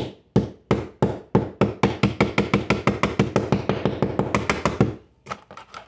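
Hammer blows struck in quick succession, each with a short ringing tone, speeding up from about three to about six a second, then stopping, followed by a few lighter knocks near the end.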